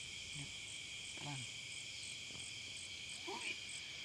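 Night insect chorus: a steady high trilling with a regular chirp pulsing about two or three times a second over it, faint throughout.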